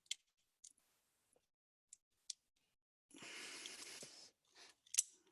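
Small sharp metallic clicks of a Ruger GP100 revolver's hammer and pivot pin being worked by hand, a handful spread through the stretch with the loudest near the end. A soft rush of noise lasting about a second comes about three seconds in.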